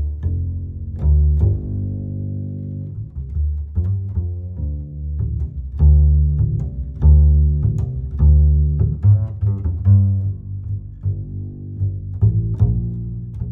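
Background music led by low strings: bowed and plucked bass notes changing about every second.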